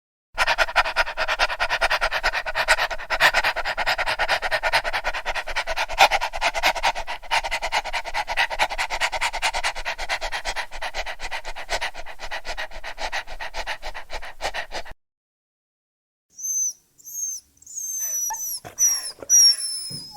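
A dog making a fast, steady pulsing sound for about fourteen seconds, then after a short pause several short, high-pitched falling whimpers.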